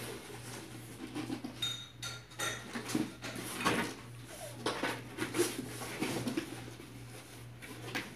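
Cardboard packaging being handled: irregular rustling, scraping and soft knocks as a cardboard box is lifted and turned, over a steady low hum.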